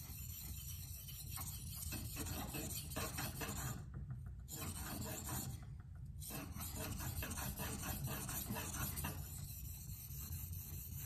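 Steel blade of a Spyderco Waterway knife (LC200N) being drawn back and forth across a Naniwa Pro waterstone: repeated gritty scraping strokes. The high end of the sound falls away briefly twice, about four and six seconds in.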